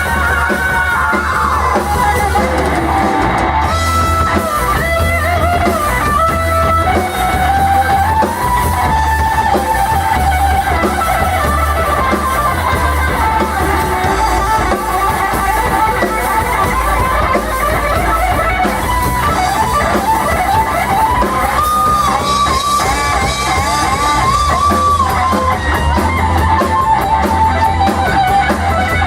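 Rock band playing an instrumental passage: a lead electric guitar carries a melody with bent, gliding notes over bass guitar and drums.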